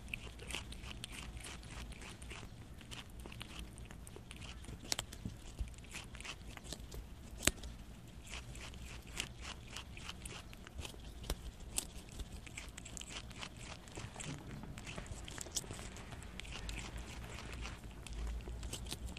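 Prairie dog biting and chewing Korean melon (chamoe), picked up close by a clip-on microphone on its body: a quick, uneven run of small clicking bites, with one sharp, louder snap about seven and a half seconds in.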